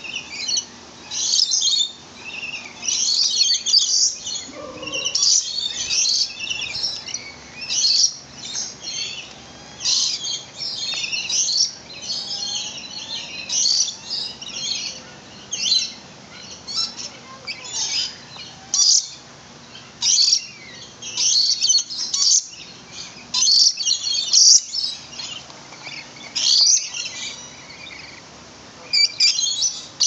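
Aviary birds, lorikeets among them, calling in a dense, nearly unbroken chorus of short, high-pitched chirps.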